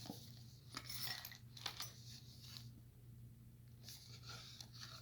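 Faint clicks and light rustles of small lock parts and packaging being handled during unboxing, over a steady low hum.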